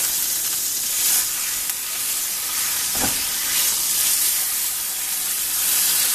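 Beef roast searing in hot sunflower oil in a cast iron frying pan: a steady loud sizzle. A brief knock about three seconds in as the meat is turned with a slotted spatula.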